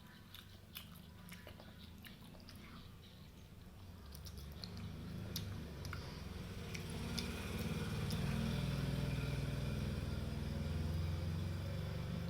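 A person chewing and biting fried chicken close to the microphone, with small sharp crunches and clicks. In the second half a low rumble swells up and becomes the loudest sound.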